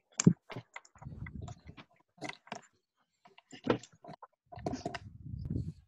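Scattered light clicks and taps, with two stretches of low rumbling noise, about a second in and near the end.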